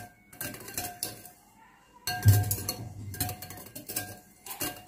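Wire whisk beating egg and milk pudding mixture in a glass bowl, its wires clinking and tapping against the bowl in quick irregular strokes as the sugar is mixed in. It goes quiet for a moment a little over a second in, then picks up again with more clinks.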